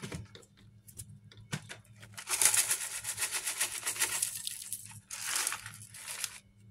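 Dry crinkling and crackling in bursts as crispy fried shallots are added, after a few sharp clicks, over a faint steady low hum.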